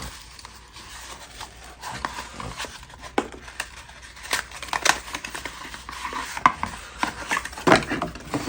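Hard plastic vacuum attachments being handled and unpacked: irregular clicks, knocks and light rustling, with the sharpest knocks in the second half.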